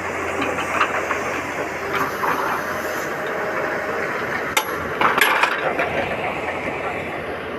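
Tata Hitachi hydraulic excavator running under work, with a few sharp metallic clanks from the bucket and its linkage about four and a half to five and a half seconds in as the bucket swings back down.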